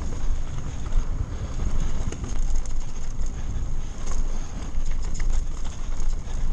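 Mountain bike riding down a dirt singletrack: heavy wind rumble on the bike-mounted camera's microphone, with tyre noise on the dirt and frequent rattles and clicks from the bike over the rough trail.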